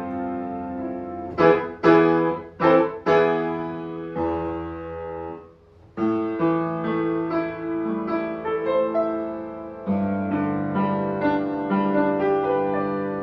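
Piano playing: a few loud struck chords about one and a half to three seconds in, a held chord that fades away, a brief pause a little before halfway, then the playing resumes with sustained notes.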